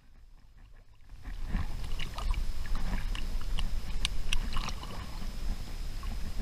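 Sea water sloshing and splashing around a camera held at the waterline, with many small sharp splashes over a low rumble; it starts about a second in.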